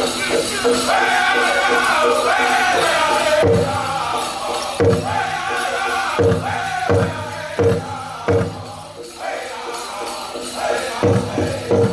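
Powwow drum group singing a men's chicken dance song: high voices in unison gliding up and down, with heavy beats on the big drum coming in about three and a half seconds in, spaced unevenly, fading for a moment and coming back near the end.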